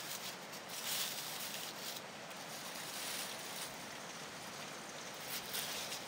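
Aluminium foil crinkling and rustling in irregular flurries as it is slit with a knife and pulled open, over a steady background hiss.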